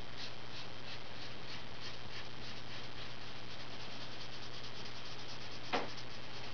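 Crayola Super Tips felt-tip marker scratching across paper in short back-and-forth colouring strokes, about three a second at first and then quicker and denser, with one louder, sharper stroke near the end. A steady low electrical hum runs underneath.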